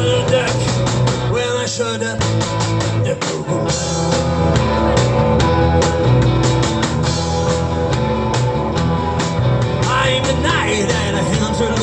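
Rock band music: electric guitar, bass and drum kit playing with a steady beat, with no lead vocal line.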